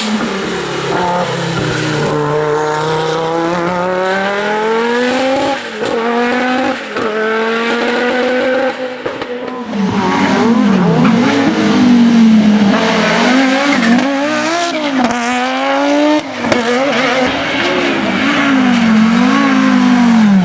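Audi quattro S1 E2 rally car's turbocharged five-cylinder engine at full throttle, pitch climbing through the gears with brief breaks at the shifts, then swinging rapidly up and down as the throttle is worked.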